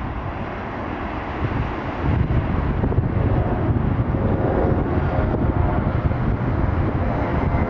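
Gusty wind rumbling on the microphone over the steady noise of jet aircraft on the airport apron, with a faint whine joining about three seconds in.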